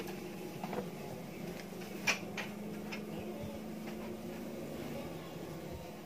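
Digitec 14-inch CRT television's speaker giving a steady hiss with a faint low hum, its sound not clear. The repairer judges from the hiss that the fault is likely in the regulator section, though it could be the oscillator near the IC. A few light clicks, the sharpest about two seconds in.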